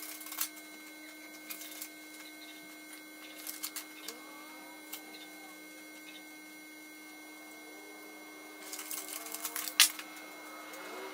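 Paper being handled and cut with scissors: scattered rustles and snips, with a denser run near the end and one sharp click. A steady electrical hum runs underneath.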